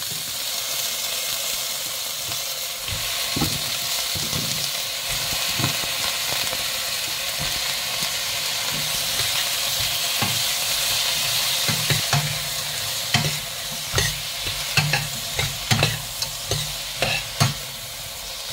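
Whole shrimp sizzling as they fry with onion in a stainless steel pot, stirred with a metal ladle that knocks and scrapes against the pot. The knocks come more often in the second half.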